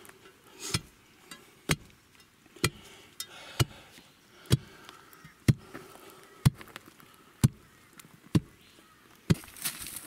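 A steel tamping bar pounding backfilled soil around a timber pole in a post hole, about ten dull strikes at a steady one a second. The soil is being compacted layer by layer to set the pole. Near the end, loose dirt pours into the hole with a rushing hiss.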